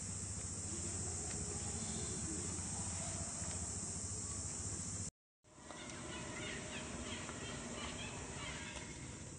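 Outdoor insect drone: a steady high hiss over a low rumble, cut off completely for a moment about five seconds in. After the break, short faint chirps come and go.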